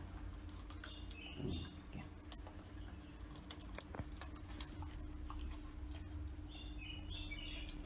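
Dog chewing on a freshly killed mouse, with scattered wet clicks and crunches. Two brief bursts of high chirps come about a second in and again near the end, over a faint steady hum.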